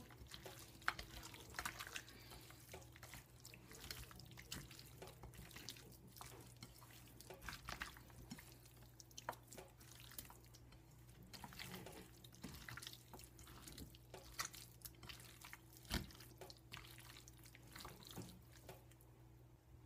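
Faint, irregular wet squelches and clicks of a bare hand kneading raw goat chops in a thick, wet spice marinade in a bowl, over a low steady hum.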